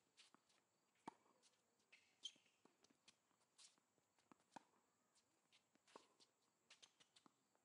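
Faint tennis rally on a hard court: sharp pops of the ball coming off the racket strings and bouncing, about one every second or so, with a few closer together near the end.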